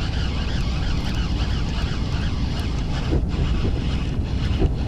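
Wind buffeting the microphone, over the whir of a baitcasting reel being cranked steadily as a small, unresisting fish is reeled in. A few light clicks near the end.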